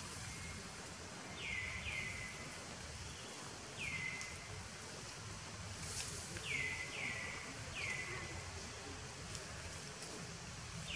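Outdoor ambience in which a bird gives about seven short calls, each falling quickly in pitch, some single and some in quick pairs or threes, over a steady low hum.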